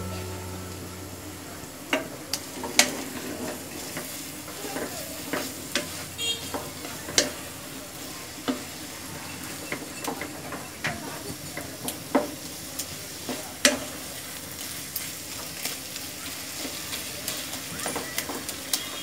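Chopped taro leaves frying in a pan with a steady sizzle, while a wooden spatula stirs them and knocks and scrapes against the pan in irregular sharp taps. The taps start about two seconds in.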